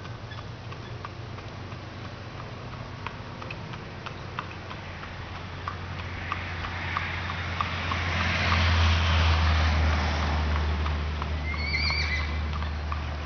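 Horse's hooves clip-clopping on an asphalt road in a regular beat as it pulls a two-wheeled training cart, with the low engine hum and tyre noise of a following pickup truck swelling as the rig passes, loudest about eight to ten seconds in.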